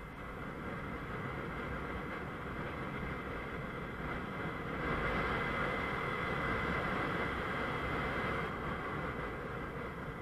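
Ride noise from a Honda CBF 125, a small single-cylinder motorcycle, riding along a street: a steady rush of wind over the microphone with the engine running underneath. The rush grows louder from about halfway through for a few seconds, then eases.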